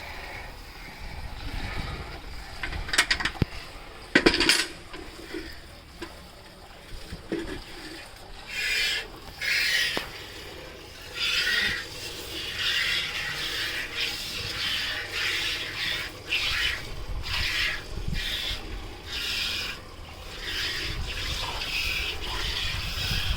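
Buffalo being milked: jets of milk hissing into a pail in repeated bursts, a half to one second apart, after two sharp knocks a few seconds in.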